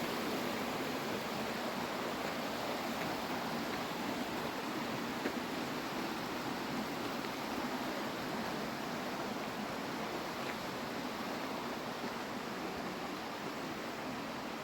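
River water rushing in a steady, even wash of noise.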